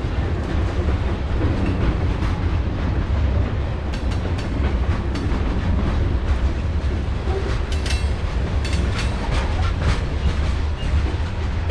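Train rolling past with a steady low rumble, its wheels clacking over the rail joints in clusters about four seconds in and again near eight to nine and a half seconds.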